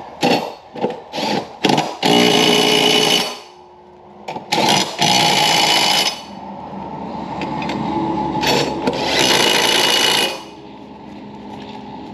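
Power drill tightening the bolts of freshly sharpened mower blades back onto the deck spindles: several short blips, then three longer runs, the last building up over about three seconds before it stops.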